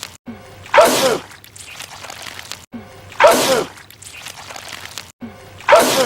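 A man sneezing loudly three times, the same sneeze repeated about every two and a half seconds.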